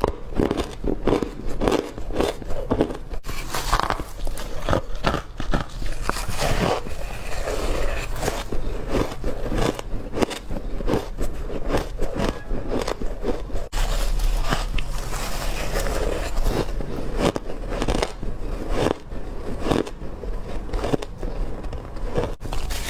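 A person biting and crunching hard crushed ice in a continuous run of crackling crunches, several a second.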